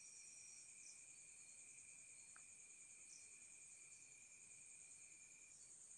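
Near silence: faint, steady high-pitched chirring of crickets, with a faint steady whine beneath it.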